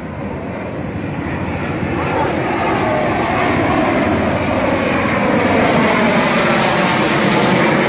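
Dassault Rafale fighter's twin jet engines running as it flies low overhead on its landing approach. The roar grows louder over the first few seconds and then holds, with a high whine over it from about three seconds in.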